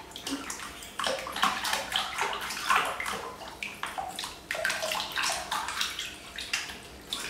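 Water splashing and sloshing in a plastic basin as a baby monkey is washed by hand, in irregular small splashes.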